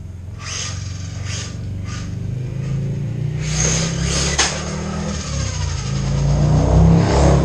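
Brushless-motored RC car on a 4S LiPo running at speed, with a few short surges of motor and tyre noise. It grows louder near the end as the car comes close.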